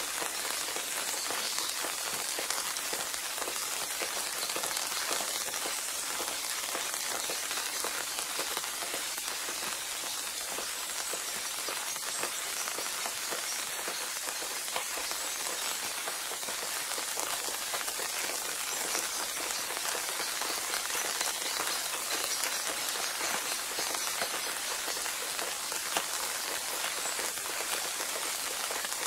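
Steady rain sound: an even hiss of falling rain with a fine patter of drops, unchanging throughout.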